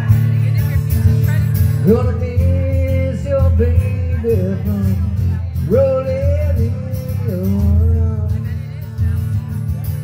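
Live acoustic music: an acoustic guitar strummed under a held lead melody. The melody slides up into two long phrases, about two seconds in and again near six seconds, each bending down at its end.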